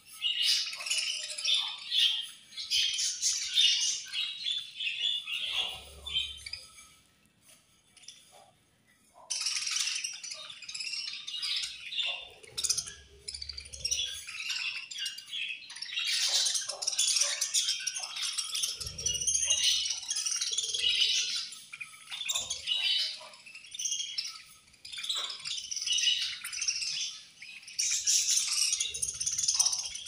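A flock of budgerigars chattering and chirping continuously while they feed, a dense high-pitched twittering of many birds at once. It falls almost quiet for about two seconds around a quarter of the way in, then picks up again.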